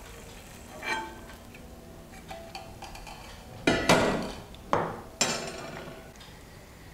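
Kitchen utensils being set down: a metal ladle, wooden spatula and steel strainer knocking and clinking against bowls and the counter. A light knock about a second in, then a cluster of louder clatters with short metallic ringing around four to five seconds in.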